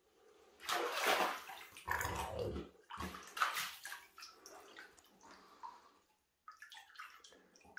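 Water splashing and sloshing on a tiled shower floor as a cougar paws and snaps at small fish in the shallow water. There are several splashes in the first four seconds, then quieter, shorter ones.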